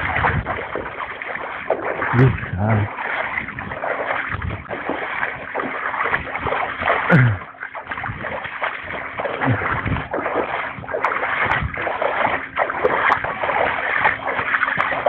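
People wading through a river: water splashing and sloshing continuously around their legs.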